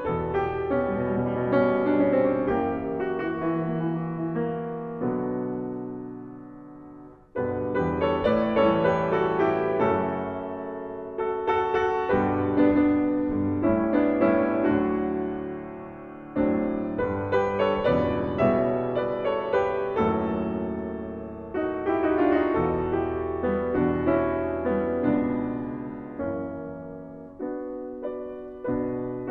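Classical-style piano music. The notes die away between about four and seven seconds in, and a new phrase enters sharply just after.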